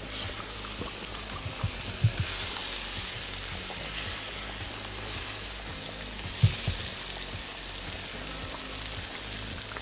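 Hot broth bubbling and hissing in a cast-iron Uzbek kazan over a fire as raw potato chunks are added by hand, with two dull plops, about two and six and a half seconds in.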